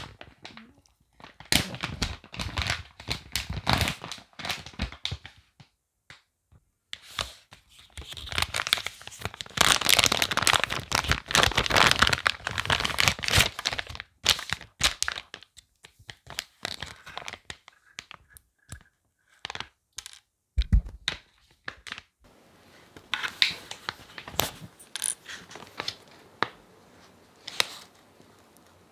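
Product packaging being opened and unwrapped by hand: tearing and crinkling of the wrapping, with scattered clicks and handling knocks. The rustling is thickest in a long stretch in the middle, and there is one low thump about two thirds of the way through.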